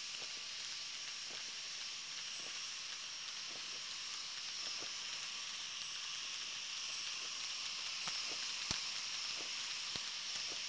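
Faint, scattered pops of distant New Year's fireworks, the sharpest about nine seconds in, over a steady high-pitched hiss with a few faint, short, high chirps.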